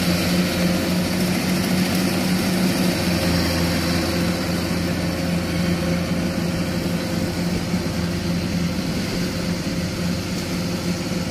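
Diesel engine of farm machinery in a muddy rice field, running at a steady speed with no revving.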